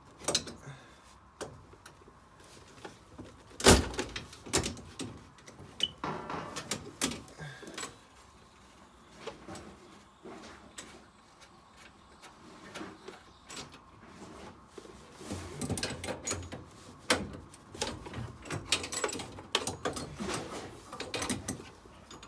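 Spanner clicking and knocking on the combi boiler's pipe connection nuts as the hot and cold water connections are undone. Irregular clicks and knocks, with one sharp loud knock about four seconds in and busier clicking over the last several seconds.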